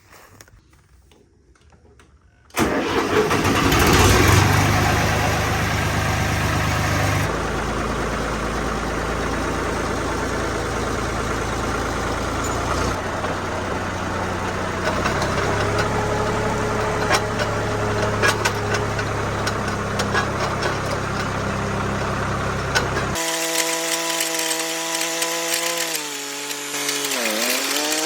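A tractor engine starts up suddenly about two and a half seconds in and runs, its sound changing abruptly several times. Near the end its pitch drops and then rises again.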